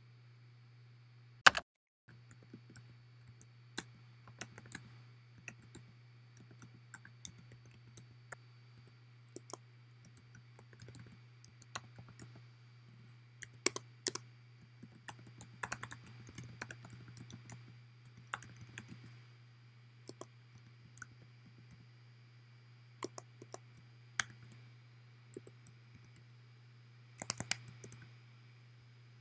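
Typing on a computer keyboard: scattered, irregular keystrokes, with a sharp click about a second and a half in and a quick flurry of keys near the end. A faint steady hum runs underneath.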